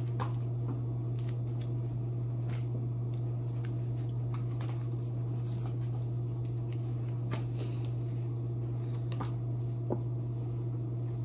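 Dishwasher running with a steady low hum, with soft clicks and flicks of stiff paper flashcards being handled and flipped now and then.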